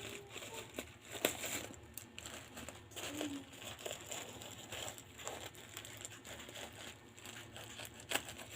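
Packaging being handled and unwrapped, crinkling irregularly with a few sharper snaps, about a second in and again near the end.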